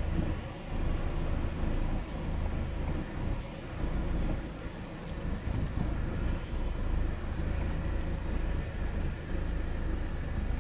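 Car engine running slowly or idling, heard from inside the cabin as a steady low hum.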